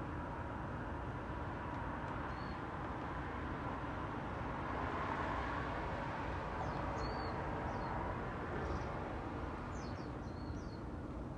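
Distant city traffic hum that swells for a few seconds in the middle as a car passes on the road below, with small birds giving short high chirps, a few at a time, in the second half.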